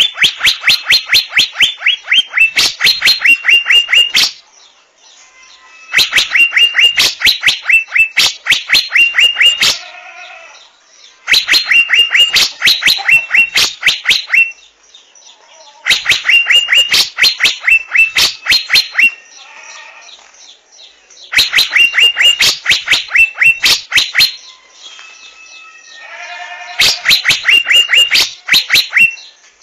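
Asian fairy-bluebird calling: high, sharp notes in quick succession, in bouts of three to four seconds that repeat about every five and a half seconds, six bouts in all.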